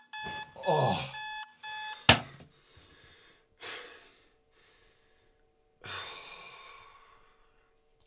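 Electronic alarm clock beeping in quick repeated pulses, with a short vocal cry about a second in. A sharp click about two seconds in cuts the beeping off. After it come two soft noisy sounds over a faint steady hum.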